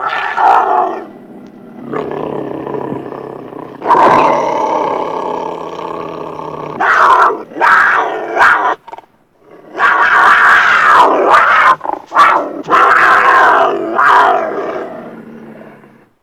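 A series of beast growls and roars: a long low growl, then several loud, harsh roars in quick succession near the end, each rising and falling.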